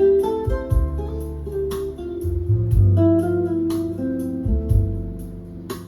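Instrumental jazz recording: plucked-string melody over low bass notes that change about once a second, with a steady pattern of light high ticks keeping time.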